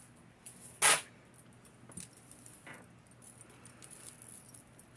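Metal costume-jewelry chains and beads clinking and jangling as they are handled, with one louder, brief jangle about a second in and a few light clicks after.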